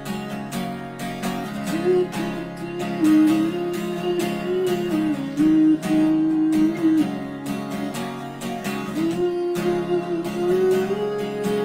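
Acoustic guitar strummed in a steady rhythm, with a man's voice singing a held melody over it that pauses for a couple of seconds past the middle.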